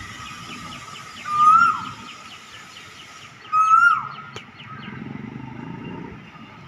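A cuckoo calling twice, about two seconds apart, each call a clear note that rises and then drops away. Behind it, another bird chirps rapidly and a low rumble comes up near the end.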